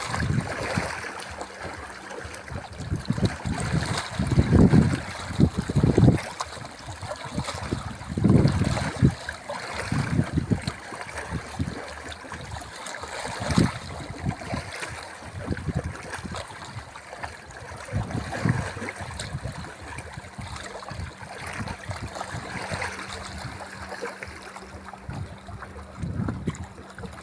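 Sea water lapping and splashing, with irregular low rumbling surges that are loudest about four to six seconds in.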